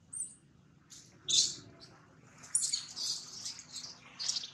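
Baby long-tailed macaque giving a string of short, high-pitched squeals and cries, the loudest about a second and a half in.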